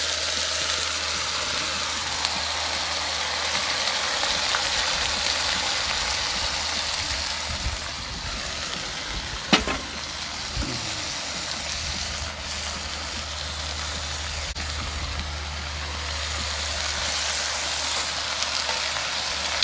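Seasoned pork ribs frying in hot oil in a pot over a charcoal fire: a steady sizzling hiss as the meat sears with the toasted geera (cumin). There is a low steady rumble underneath and one sharp knock about halfway through.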